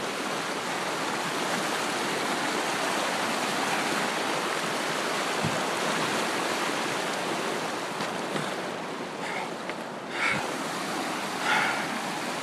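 Steady rushing of a stream or waterfall, with a few short, slightly louder sounds in the last few seconds.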